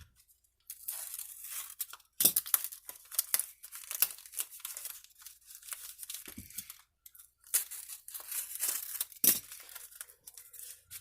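Paper wrapping being torn and crumpled by hand, in irregular rustling bursts with a couple of short pauses.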